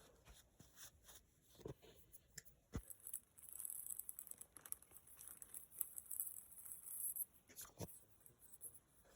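Faint scratchy scrubbing with scattered small clicks and taps, from a dirty coin being cleaned by hand. The scratchy rubbing runs steadily from about three seconds in to about seven seconds.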